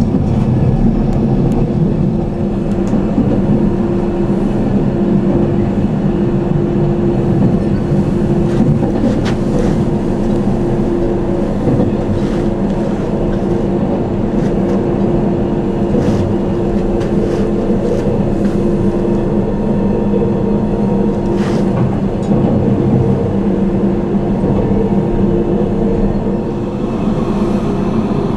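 Glacier Express electric train running on metre-gauge track, a steady rumble with a constant low hum and a few sharp clicks from the wheels.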